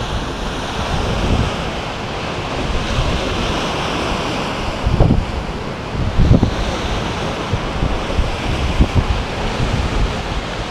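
Sea surf on an incoming tide: waves breaking and washing up a shingle beach as a steady rushing. Wind buffets the microphone with low thuds, loudest about five and six seconds in.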